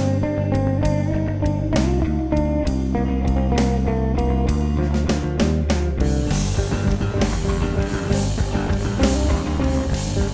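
Instrumental chill music with layered electronic textures, a steady drum beat and sustained bass notes. About six seconds in, the held bass drops back and a brighter, cymbal-like wash comes in.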